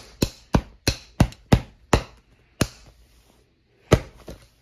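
Hammer striking a Fitbit fitness tracker lying on a bed: a fast run of sharp blows, about three a second, that slows and stops about two and a half seconds in, then one more hard blow about four seconds in.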